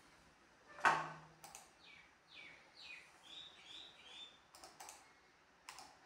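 A few sharp clicks, the loudest about a second in, and between them a small bird chirping: about six short calls, each falling in pitch.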